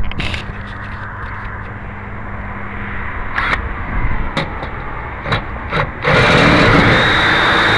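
A few scattered clicks and knocks of handling, then about six seconds in a cordless drill starts and runs steadily, its twist bit boring into a mailbox lock cylinder.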